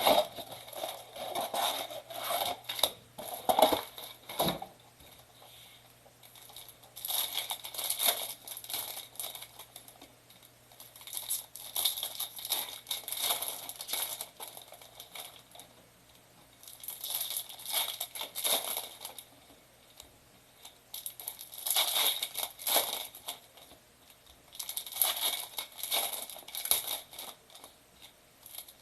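Crinkling and tearing of plastic trading-card pack wrappers and box wrapping as a Bowman Mega box is opened. It comes in bursts every few seconds.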